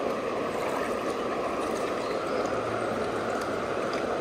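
Creek water pouring steadily over a dam, an even, unbroken rush.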